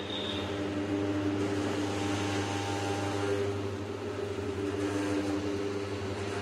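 Tyre-changer machine's electric motor and turntable running with a steady hum as the wheel turns under the mounting head and the tyre is worked onto the rim.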